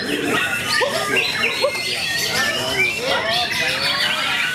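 White-rumped shama (murai batu) singing amid a dense chorus of other songbirds: many overlapping whistles, quick chirps and sliding notes.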